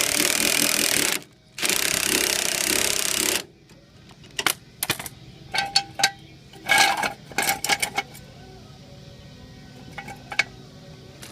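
An 18-volt cordless impact wrench hammering in two bursts of about two seconds each as it spins the screw of a small hand-crank car jack to raise the car. After that come a run of short metallic clicks and clanks, with a few fainter knocks near the end.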